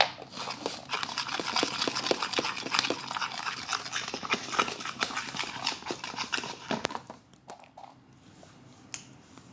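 A fork stirring a sticky glue, glitter and baking soda slime mixture in a bowl: rapid, irregular clicking and scraping that stops about seven seconds in.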